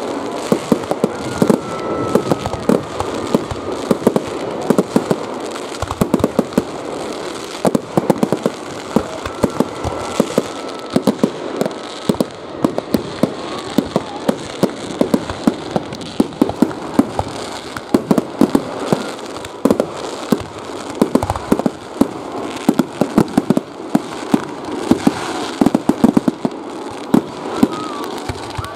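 An aerial fireworks display going off in a rapid, unbroken barrage of sharp bangs and crackling as shells burst and trails rise, with many reports every second.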